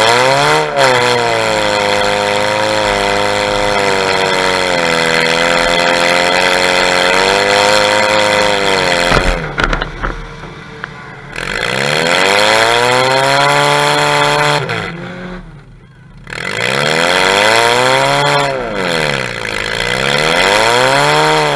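Demolition derby car's engine revving through its open upright exhaust stack, the pitch climbing and falling over and over as the driver gets on and off the throttle, briefly dropping away twice.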